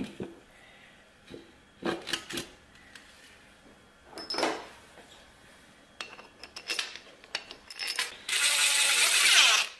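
Metal clinks and clanks as a 4L80E transmission's front pump is seated in the case and its bolts are set in. About eight seconds in, a cordless power tool runs for just over a second, running a pump bolt down.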